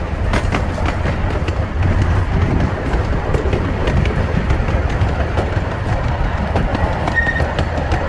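Open wooden cars of a small passenger train rolling along the track: a steady low rumble with irregular clicking and clatter of the wheels on the rails. A short high-pitched note sounds about seven seconds in.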